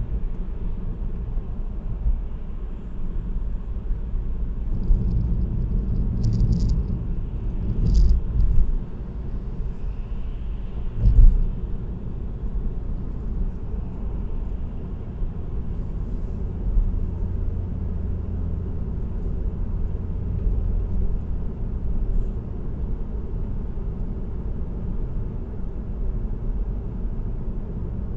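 Steady low rumble of a car's tyres and road noise at expressway cruising speed, picked up by a dashcam inside the car. A few short knocks come through, about a third of the way in.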